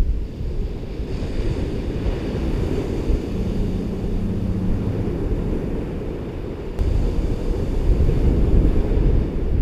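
Ocean waves washing onto a beach, with wind buffeting the microphone. The hiss of the surf is clearest in the first half, and the wind rumble grows heavier in the last few seconds.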